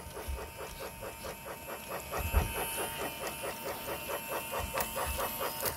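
Lionel Mickey Mouse battery-powered toy train running along its plastic track, making a rapid, even clatter of about six or seven beats a second, with a couple of low knocks as it jolts over the track.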